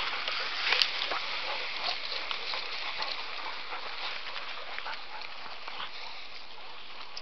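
Rustling and crackling of dense undergrowth and twigs as people and dogs push through bush, with many small snaps and one sharp crack about a second in.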